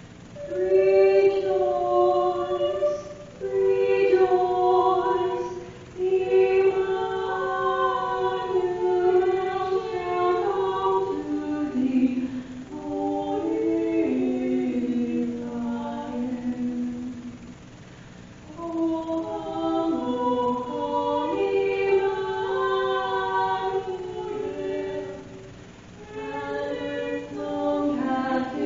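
A choir singing a slow hymn in parts, in sustained phrases with short breaths between them.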